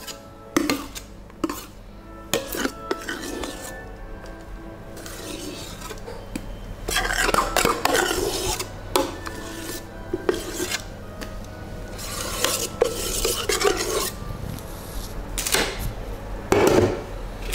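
A metal spoon scraping and knocking against a stainless steel stand-mixer bowl as whisked sponge batter is pushed out of it. There are sharp knocks scattered throughout, and longer stretches of scraping about seven and twelve seconds in.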